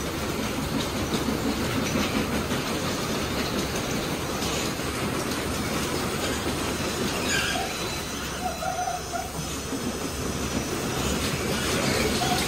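Belanger Cube car wash gantry's rotating wrap-around brushes scrubbing the rear of an SUV: a steady, dense swishing and slapping of brush strips on the wet car with the machine running. A few short squeaks sound about eight seconds in.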